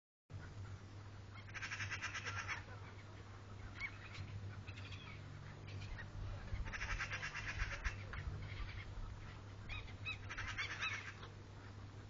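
A flock of gulls calling: three bouts of fast, repeated squawking calls with single calls between them, over a steady low hum.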